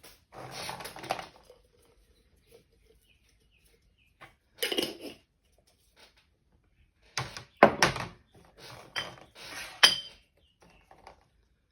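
Kitchenware being handled: several short clattering bursts with sharp knocks, the loudest knocks a little past the middle and again near the end.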